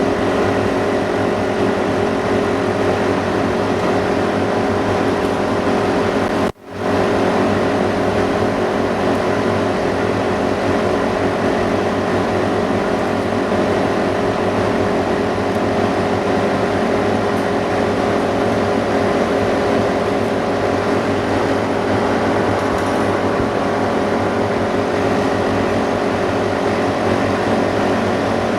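Steady electric hum of workshop machinery running: fans and motors with several steady tones. It cuts out briefly about six and a half seconds in.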